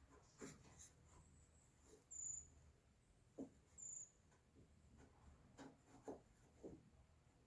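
Near silence with faint, light taps as glued wooden picture-frame pieces are handled and their mitred corners lined up, and two brief high squeaks.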